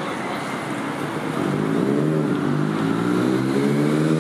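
Motor vehicle engine accelerating over street noise: from about a second and a half in its pitch dips briefly, then rises steadily as it gets louder.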